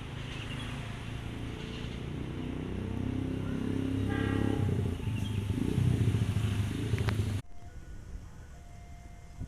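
Motor vehicle engines rumbling and growing steadily louder, then cutting off suddenly about seven seconds in, leaving a quieter background with faint short tones repeating.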